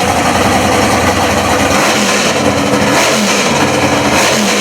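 Drag-race car engine running loud: a steady deep rumble, then about two seconds in the revs start blipping up and down roughly once a second, as when the car is held and revved while staging at the line.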